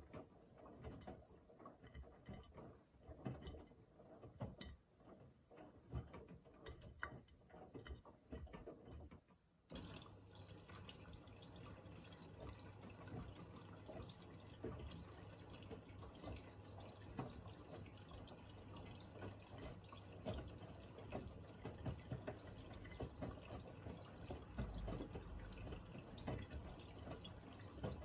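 Miele Navitronic W3985 washing machine filling with water at the start of its Express 40° programme. For the first third there are irregular splashes and drips. Then a steady rush of incoming water with a low hum starts suddenly and keeps on.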